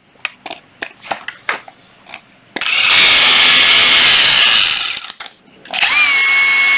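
Hilti TE 6-A36 cordless brushless rotary hammer being switched between modes and test-run: a few sharp clicks, then a loud, rough burst of about two and a half seconds, and near the end the motor spins up with a rising whine and runs steadily.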